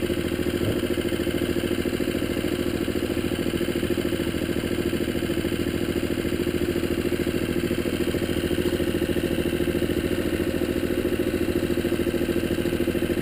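Small outboard motor pushing an inflatable dinghy, running steadily at cruising speed.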